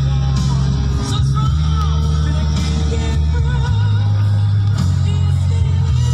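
Rock music with a heavy bass line changing note about once a second and guitar above it.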